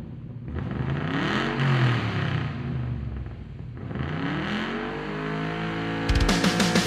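Revving engine sound in the soundtrack, rising and falling in pitch twice. Heavy rock music with electric guitar comes in near the end.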